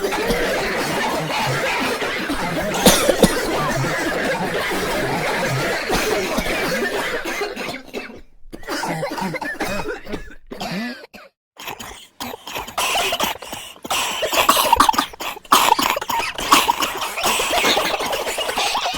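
People coughing repeatedly. In the second half the coughs come in short, separate bursts with brief gaps between them.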